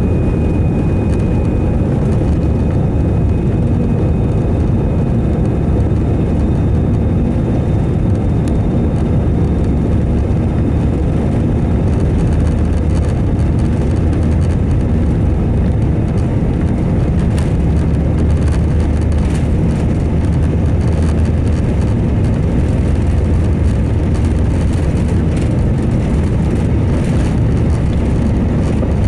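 Steady jet engine and airflow noise inside the cabin of an Airbus A320 under power, a deep even rumble with a hiss above it.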